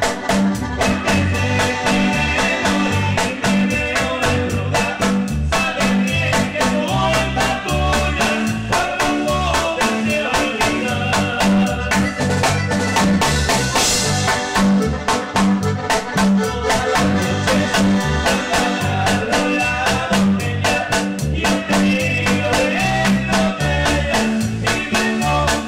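Live dance band playing without vocals: timbales, cowbell and a plastic block struck over a steady driving beat, with electronic keyboards. A cymbal crash rings out about halfway through.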